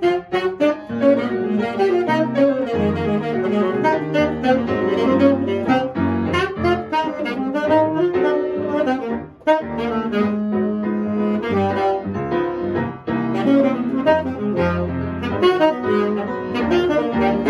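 Live jazz saxophone playing a fast, busy melodic line, with low bass notes stepping underneath; the line breaks briefly about halfway through.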